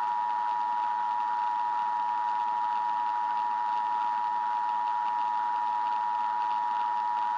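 Emergency Alert System attention signal: a steady two-tone alarm over a hiss of static, unbroken throughout.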